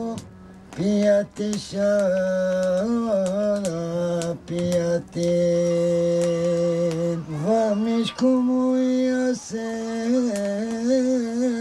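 A single voice singing a slow song, holding long notes that waver in pitch, with short breaks between phrases.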